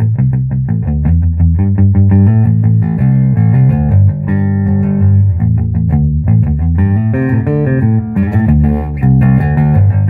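Fender '57 reissue Precision Bass (Japanese-made) played through a 1966 Ampeg B-15N Portaflex tube bass amp. Quick repeated plucked notes for the first couple of seconds give way to a melodic bass line moving up and down.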